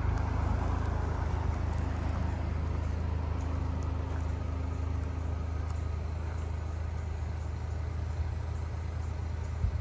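2009 Chevy HHR SS's turbocharged 2.0-litre four-cylinder engine idling steadily.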